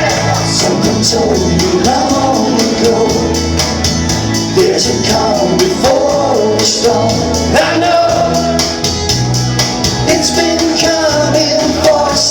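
A live rock band playing with a steady beat and male singing.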